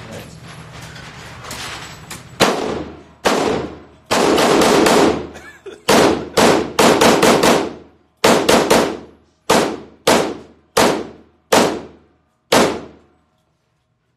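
FN pistol fired in a string of about fifteen shots in an indoor shooting range, each crack ringing off the walls. The shots start about two seconds in, come fast in the middle, then slow to single shots under a second apart, ending about a second before the close.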